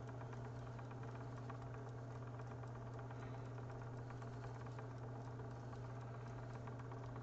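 Magpie Daedalus spinning wheel running steadily, its flyer and bobbin whirling as yarn is drawn on: an even hum with a fine, rapid ticking patter over it.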